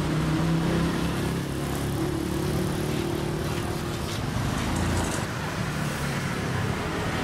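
Street traffic noise, with a motor vehicle engine running close by as a steady low hum for about the first four seconds.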